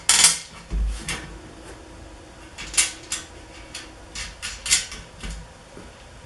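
Bolts, washers and nuts clinking and knocking against the booth's foot as they are fitted by hand: a string of short, sharp metallic clicks and clacks, about ten spread irregularly over several seconds.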